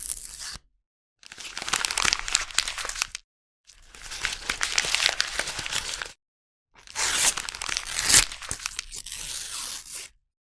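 Sheets of paper crumpled by hand, crackling and rustling in four separate takes: a short one, then three longer ones split by dead silence.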